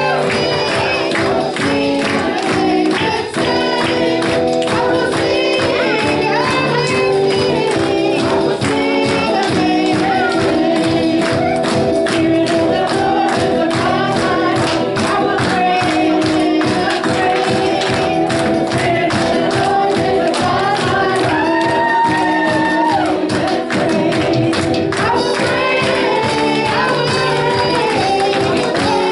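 Gospel worship music: group singing over sustained instrumental chords, with a steady percussion beat.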